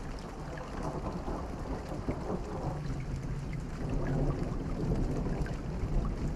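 Steady rain falling with scattered drop ticks, under a low rolling rumble of distant thunder that swells slightly over the second half.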